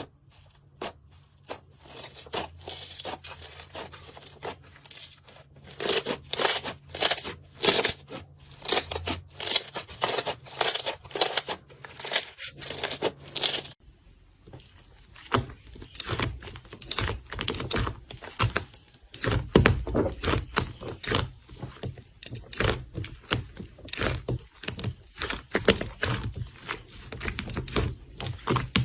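Slime being squeezed, stretched and poked, with dense irregular crackling and popping. The sound changes about 14 s in, where it turns deeper and thuddier.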